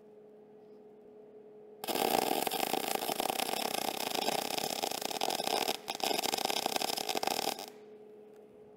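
Wire-fed MIG (gas metal arc) welder running an arc: it starts abruptly about two seconds in, cuts out for a moment partway through, and stops abruptly about a second before the end.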